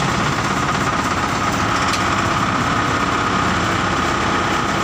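Fire truck engine running steadily, with a constant high whine over it.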